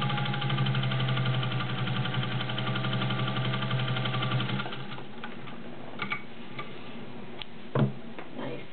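Singer 201-2 sewing machine's belt-free potted motor and gear drive running steadily at a fast even stitching rhythm, stopping about halfway through. A few light clicks and one louder knock follow.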